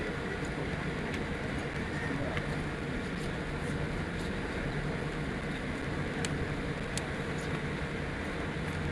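Steady cabin noise of a Boeing 787 taxiing after landing: engines at low taxi thrust and the air-conditioning hiss, with a few faint light ticks.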